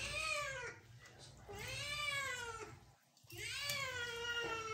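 Wet kitten meowing during a bath, scared: three drawn-out meows, each rising then falling in pitch, the last one the longest and sliding slowly downward.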